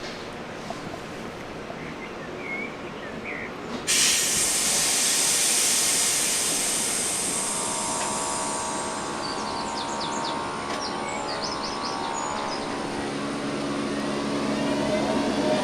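SNCB AM80 electric multiple unit pulling away: a sudden loud hiss of compressed air about four seconds in that slowly fades. Then the steady whine of the traction equipment comes in and begins rising in pitch near the end as the train accelerates. A few faint bird chirps come early on.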